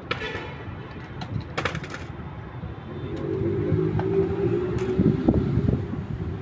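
Steady city traffic rumble. A heavy vehicle's engine builds up from about halfway through and passes, and two brief sharp clatters come in the first two seconds.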